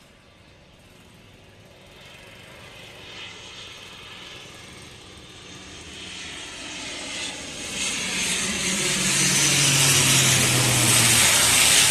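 CASA C-295 twin-turboprop transport aircraft approaching low, its engine and propeller sound growing steadily louder to a peak near the end. A low propeller hum comes in over the last few seconds.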